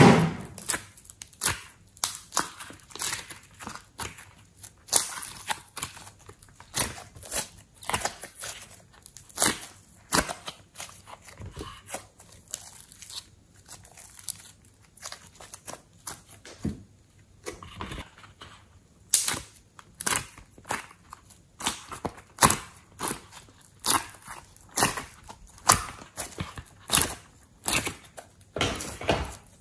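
Glossy slime being kneaded and squeezed by hand, giving short sharp squelches and sticky pops, about one or two a second.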